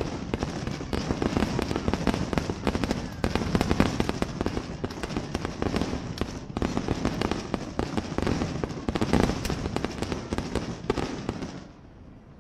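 Fireworks display: aerial shells bursting in rapid succession with dense crackling and booming, dying away sharply near the end.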